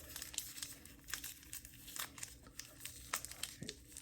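Packaging being handled and unwrapped: irregular crinkling and crackling, with scattered light ticks.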